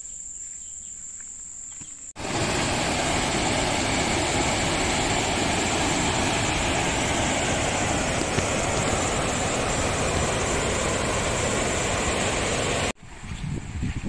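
Whitewater rushing down a waterfall cascade: a loud, steady rush that starts abruptly about two seconds in and cuts off near the end. Before it, a steady high-pitched insect drone over a calm river.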